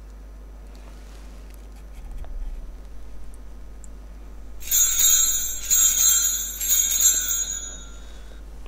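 Altar bells shaken in a series of quick rings, starting about halfway through and fading out near the end, marking the priest's communion.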